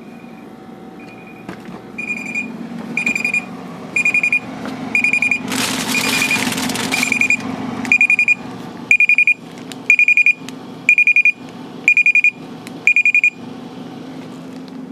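BluVac digital micron gauge beeping in its calibration routine: a short high beep about once a second, louder after the first couple of seconds and stopping near the end. A burst of plastic bag crinkling about halfway through, over a low steady hum.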